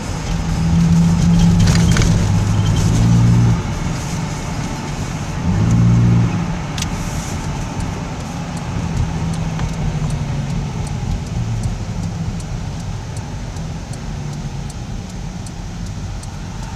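Car cabin noise while driving and slowing down: steady engine and road rumble, with a louder low drone twice in the first six seconds. From about seven seconds in, the turn signal ticks steadily.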